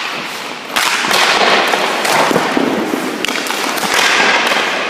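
Hockey skate blades scraping and hissing across rink ice, starting sharply about a second in and surging again later, with a few sharp clacks of sticks and pucks.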